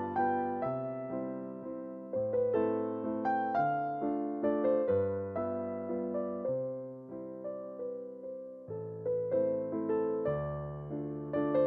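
Background music: a gentle electric piano piece, a melody over a bass line, each note struck and fading.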